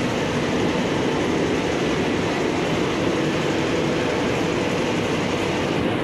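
Steady din of an underground metro platform, with a South Island Line S-Train standing at it, doors open.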